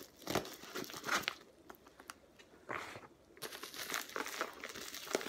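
A package being opened by hand: its wrapping crinkles and tears in irregular bursts.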